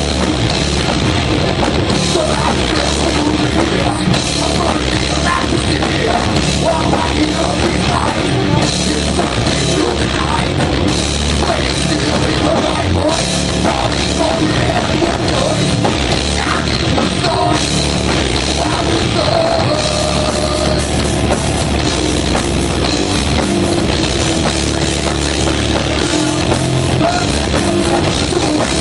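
Heavy metal band playing live: electric guitar, bass and drum kit, loud and continuous.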